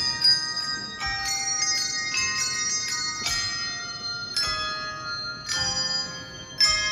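Tuned bells playing a melody: chords of struck bell notes, a new chord about once a second, each left ringing on.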